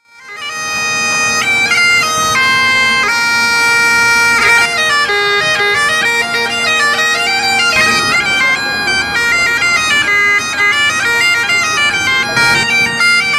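Highland bagpipes playing a tune: steady drones sounding under a melody that steps from note to note on the chanter, fading in at the start.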